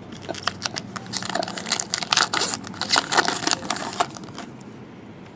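Trading-card pack wrapper crinkling and tearing as a pack is opened, with a quick run of sharp crackles and rustling that dies down near the end.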